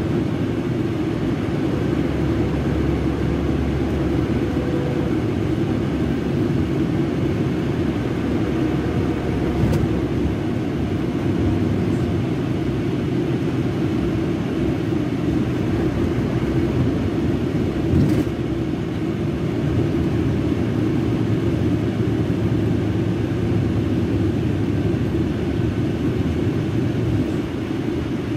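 Scania K380 bus's rear-mounted DC12 06 12-litre inline-six diesel engine running steadily, with two sharp clicks about ten and eighteen seconds in.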